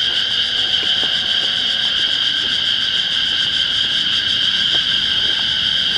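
Loud, steady chorus of cicadas buzzing without a break, with faint scattered ticks underneath.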